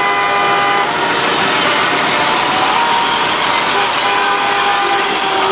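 Vehicle horns blowing in long, held blasts at the start, again about three seconds in, and near the end, over the steady noise of passing trucks' engines.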